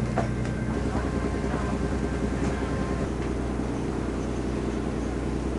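An engine running steadily: a low, even drone with a few faint clicks over it.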